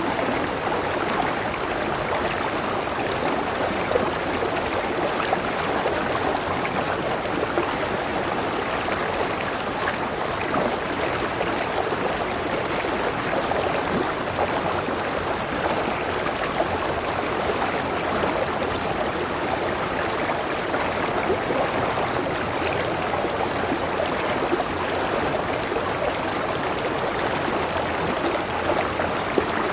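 Clear river water flowing, a steady, unbroken rush of water.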